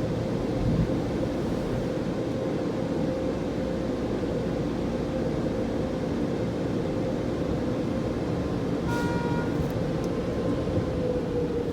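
Steady machinery hum with a held tone that sags slightly in pitch near the end; a short beep sounds about nine seconds in.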